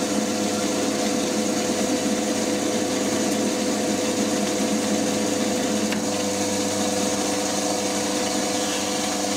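FDB Maschinen Turner 250x550 bench lathe running under power longitudinal feed, turning a metal bar with a deep cut of about 1.5 mm per side: a steady machine hum and whine with the noise of the cutter in the metal. The pass is clean.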